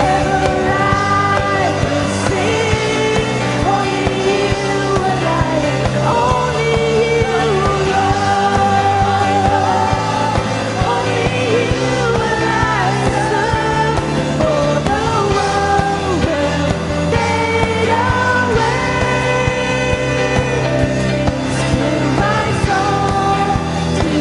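Congregational worship music: a singer's voice carrying a melody over steadily held chords and bass.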